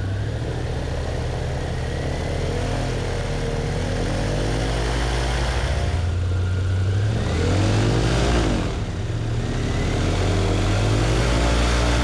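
Airboat engine and propeller running under varying throttle as the boat is driven up to the ramp, with a rev up and back down about seven to nine seconds in, then holding steady and a little louder near the end.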